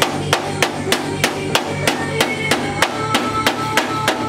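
Background music with a steady drum beat, about three beats a second, over bass and guitar.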